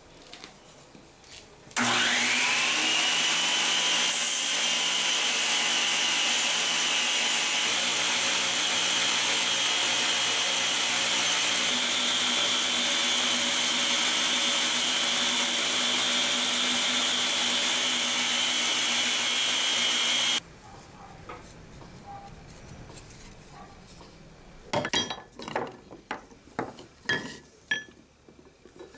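Belt grinder running with a workpiece pressed against the moving belt: a grinding hiss with a whine that climbs in pitch over about a second and then holds steady, cutting off suddenly. Near the end come light clicks and taps of ox-horn pieces handled on a steel plate.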